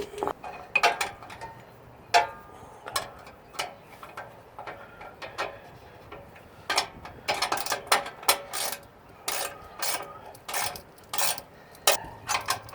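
Hand ratchet wrench clicking as bolts on a Land Rover side step are driven in: scattered clicks and metal knocks at first, then quicker runs of ratchet clicks from about halfway through.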